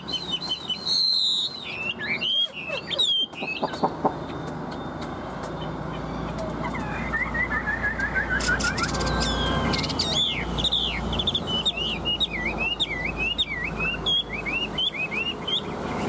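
Chinese hwamei (họa mi) singing: clear whistled notes that slide up and down, a quick run of falling notes about seven seconds in, then a long string of varied, looping whistled notes.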